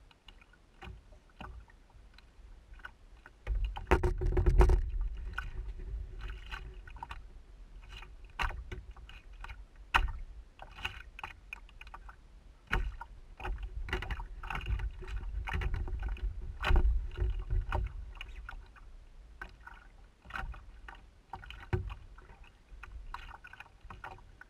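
Canoe under way on choppy water: water splashing and slapping against the hull in irregular knocks and splashes, with stretches of low rumble about four seconds in and again past the middle.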